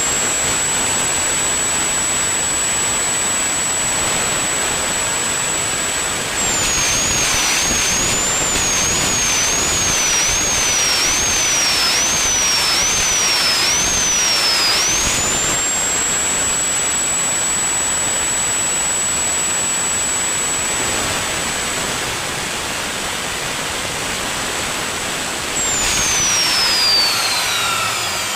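Electric motor of a rebar cutting machine running with a high, steady whine over loud grinding noise. About a quarter of the way in, the whine repeatedly sags and recovers for around eight seconds as the machine is put under load, then steadies again. Near the end it falls away as the motor winds down.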